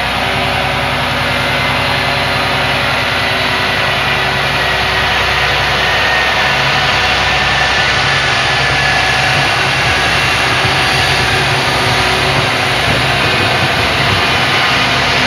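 Mechanical bell of an AŽD 71 level-crossing warning device ringing rapidly and without a break. A ZSSK passenger train approaches and runs across the crossing; its engine and wheels get gradually louder.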